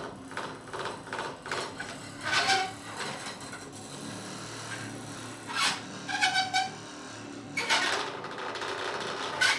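Prepared, amplified hurdy-gurdy played as a noise instrument: a quick run of rattling ticks, then several loud scraping bursts with short squeaky pitched squeals over a low drone.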